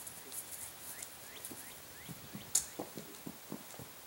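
A horse walking slowly on grass: soft, irregular hoof thuds, with one sharp click about two and a half seconds in. A few short rising chirps of small birds sound near the start.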